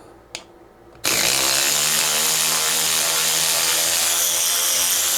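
Dinshare JC-116 cordless 3/8-drive ratchet backing a 5/16 lag bolt out of old treated wood. Its motor starts about a second in and runs steadily under load.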